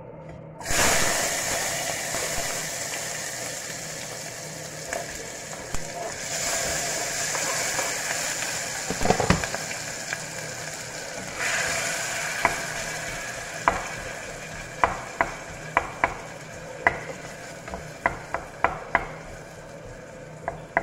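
Chopped red onion dropped into a hot steel pot, setting off a loud sizzle of frying about a second in. The sizzle swells and eases as the onion is stirred with a wooden spoon, which knocks against the pot in a string of sharp taps through the second half.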